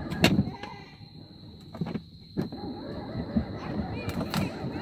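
Small ride-on vehicle rolling over pavement: a low rumble broken by several knocks and rattles as it bounces.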